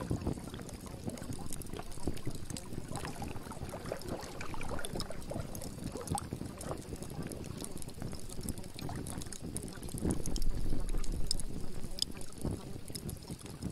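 Water splashing and lapping, an irregular sloshing with many small splashes that swells briefly about ten seconds in.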